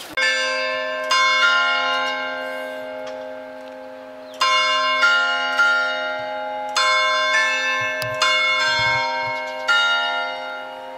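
A melody of struck bell-like chimes: about eleven notes at several pitches in uneven groups, each ringing on and slowly fading, over a steady low held tone.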